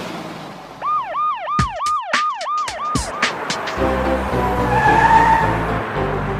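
Cartoon police siren sound effect: a fast up-and-down wail about three times a second for a couple of seconds, with a few sharp hits among it. About four seconds in, a song's instrumental intro starts.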